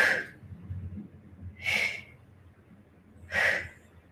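A woman breathing out hard in three short puffs about a second and a half apart, in time with her leg switches in a Pilates single leg stretch.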